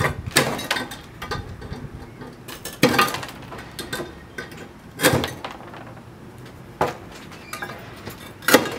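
HYTILE manual roof tile cutter's chisel and wheel biting into a concrete roof tile: a handful of sharp, hard clinks and snaps, irregularly spaced a second or two apart, the loudest near the end. The tile is being nibbled along a cut that needs no spinning blade or power.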